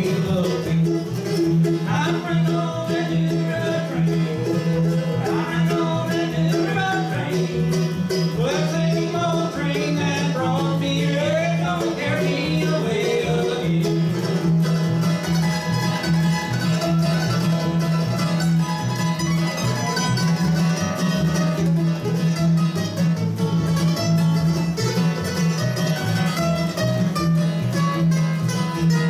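Bluegrass trio of mandolin, acoustic guitar and upright bass playing an up-tempo song, with a sung lead vocal over the first half, then an instrumental break from about halfway in, over a steady bass line.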